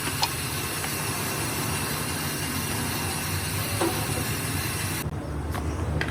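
Steady low vehicle rumble with a hiss over it. The hiss cuts out abruptly about five seconds in, leaving the rumble and a few light clicks.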